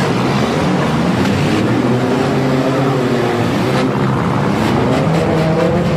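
Several demolition derby car engines revving at once, their pitches rising and falling over one another.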